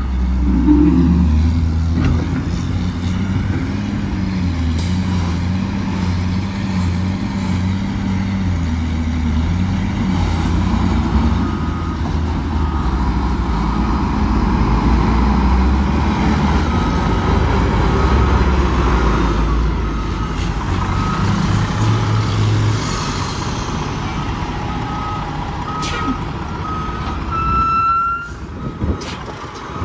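Heavy diesel engines of a wheel loader and a dump truck running, with a backup alarm beeping over and over at a steady pace. Near the end there is a short rising tone and the engine sound drops away.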